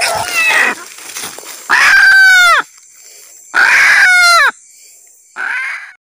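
Male red junglefowl calling while held in the hand: two loud squawking calls, each under a second and falling in pitch at the end, then a shorter, fainter one near the end.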